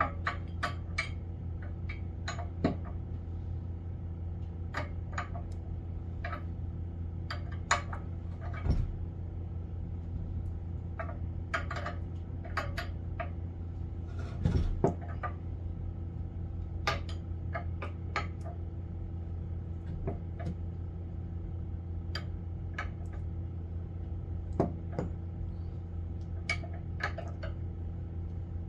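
Irregular sharp metal clinks and taps of a wrench and bolts being worked on a steel quick coupler, over a steady low hum.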